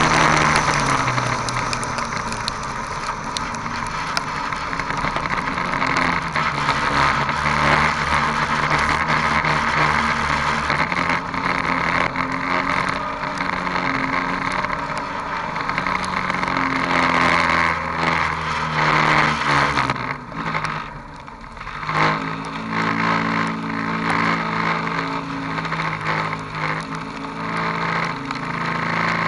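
A dirt-track race car's engine heard from on board, revving up and down through the gears over a haze of wind and tyre noise. About twenty seconds in it drops off sharply, then runs at steady low revs as the car slows.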